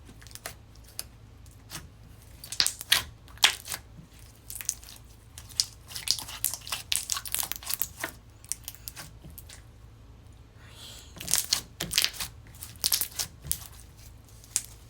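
Slime being squished and stretched by hand, giving off irregular crackles and small pops in several flurries.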